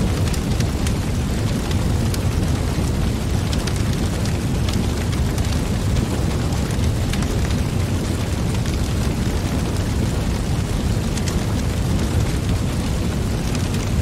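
Wood fire burning in a fire pit: a steady low rush of flames with frequent sharp crackles and pops scattered throughout.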